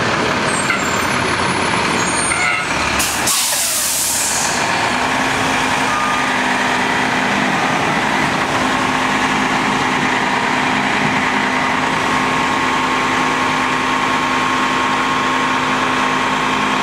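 Heavy diesel engine of a tree-crew wood chipper running steadily close by, with a sharp hiss of air about three seconds in; from about five seconds a steady engine hum settles in.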